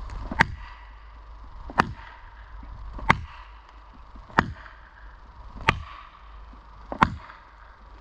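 Heavy hand-tool blows struck into wood at a steady working pace, six sharp cracks about 1.3 seconds apart.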